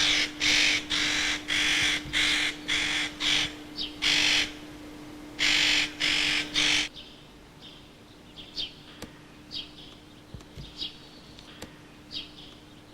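Hunting dogs barking in a quick series, about two barks a second, which stops about seven seconds in; only faint short high-pitched calls follow.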